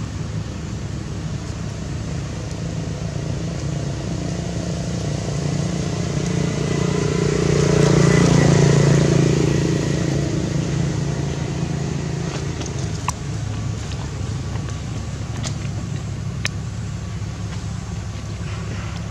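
Steady engine hum of motor traffic, with one vehicle passing that swells to its loudest about eight seconds in and fades away again. A few faint ticks follow near the end.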